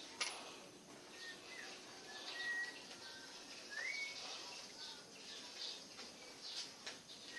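Light clicks and taps of small metal motor parts, a jigsaw armature and its bearing, being handled and fitted, with one sharp tap just after the start. Faint short high chirps, several of them, some rising in pitch, sound throughout.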